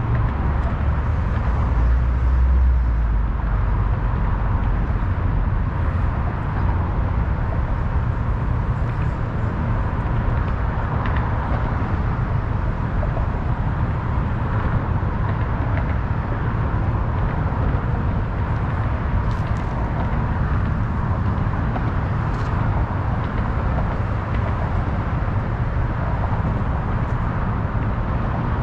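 Steady drone of city road traffic, with a deep low rumble that is a little heavier for the first few seconds, and a few faint short high sounds over it.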